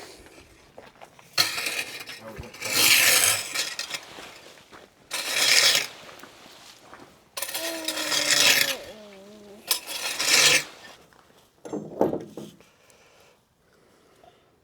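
Four long rasping, scraping strokes of a second or two each, with short pauses between them.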